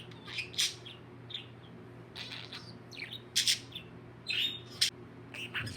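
Pet budgerigar chirping and chattering: a string of short, high chirps, with one slightly longer note about four seconds in.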